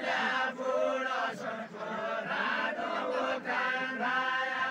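A group of men singing a deuda, the Far-Western Nepali folk song, together in a chanting style, in repeated phrases with short breaks between them.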